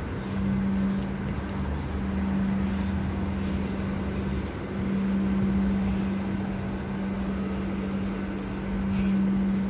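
Steady low machine hum over a low rumble, dipping briefly about four and a half seconds in.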